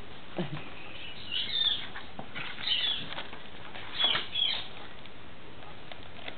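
A corella rummaging in a small cardboard Easter egg box, giving short bouts of scratchy crinkling and scuffling, three or four times, with a few light taps.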